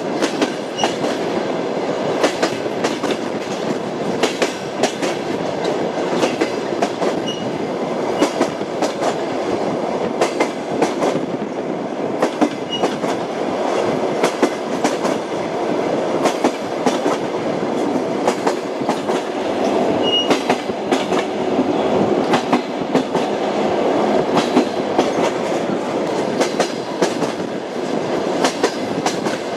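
Train wheels clattering over the rails as the train runs along, a steady rumble with frequent sharp clicks from the wheels striking the rail joints.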